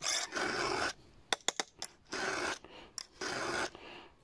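Round chainsaw file rasping across the cutter teeth of a saw chain: three strokes, the first the longest, with a few light metal clicks between the first two strokes.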